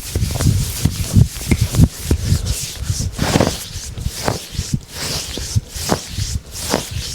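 Hands rubbing and kneading bare skin in a rough deep-tissue massage: swishing strokes over the skin mixed with rapid soft thumps, the thumps densest in the first two seconds.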